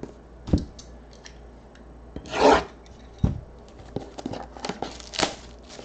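Hands handling shrink-wrapped cardboard trading-card boxes: a few light knocks as boxes are moved and set down, a scraping rub of box on box about two and a half seconds in, and small ticks and crinkles of the plastic wrap near the end.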